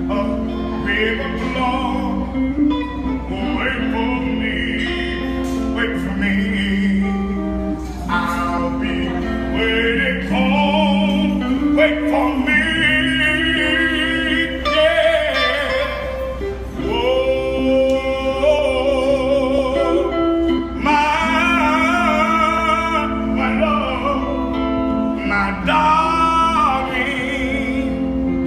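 A man singing a slow song, holding long wavering notes, over instrumental backing.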